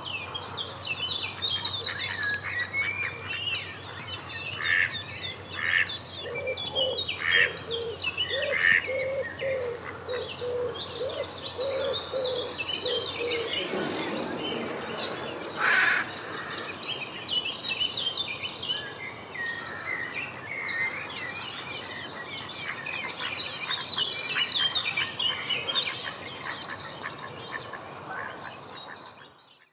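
Wild songbirds singing: high trilled phrases repeat every few seconds, with other chirps and calls between them. A low note repeats about twice a second from roughly six to thirteen seconds in.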